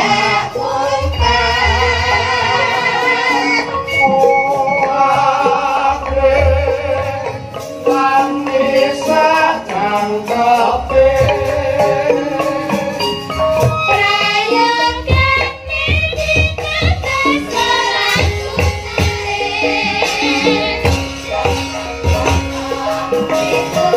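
Female sinden singing a Javanese song through microphones, the voice wavering with vibrato, over a gamelan ensemble with repeated deep drum strokes.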